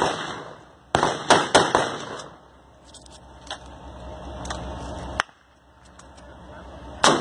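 Gunfire in a firefight: a shot at the start, a quick cluster of four or five echoing shots about a second in, a few fainter scattered shots in the middle, and one loud shot near the end.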